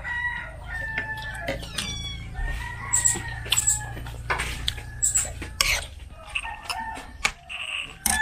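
Rooster crowing, two long drawn-out calls in the first half, with scattered sharp clicks throughout.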